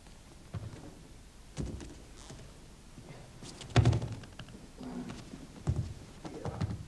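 Bodies, knees and hands thumping onto a padded martial-arts mat during grappling: about five dull thumps, the loudest about four seconds in.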